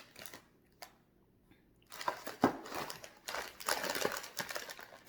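Plastic snack packet crinkling and rustling in the hands, starting about two seconds in and running on in quick irregular crackles, after a near-quiet start with one faint click.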